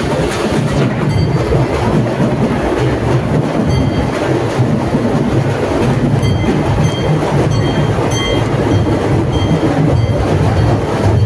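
Loud, continuous din of a festival street procession, with short high ringing notes repeating about every half second.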